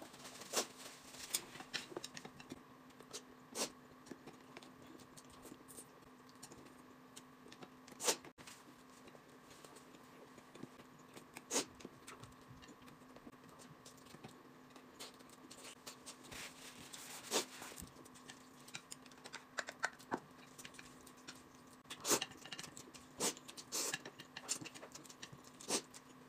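Quiet eating sounds: scattered short clicks and taps of chopsticks against plates and bowls, with chewing and mouth noises, over a faint steady hum.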